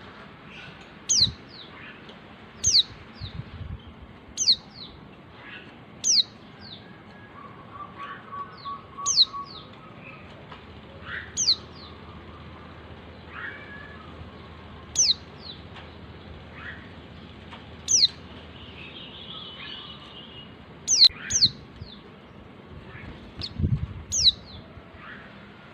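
Female white-eye (Zosterops) calling for a male: short, sharp notes that sweep steeply down in pitch, repeated every two seconds or so. Softer bird calls and a brief trill sit in the background.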